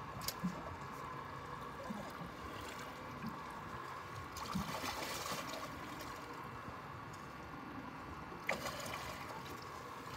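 Water sloshing and trickling against a boat's side as a hooked tarpon is held alongside, with a brief splash about halfway through. A few light knocks near the start and a sharp knock about three-quarters of the way in.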